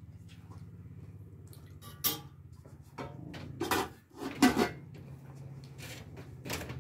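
Several sharp clinks and knocks of dishes and a metal tray being handled, the loudest a little past the middle, over a steady low hum.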